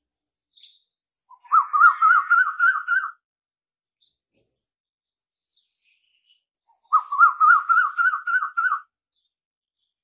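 Koel calling: two bursts of rapid repeated short notes that rise and fall, each burst lasting about two seconds, the second coming about four seconds after the first.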